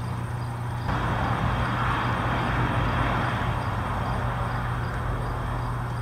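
Steady low hum of vehicle noise. A louder rush of traffic sound starts abruptly about a second in and fades toward the end.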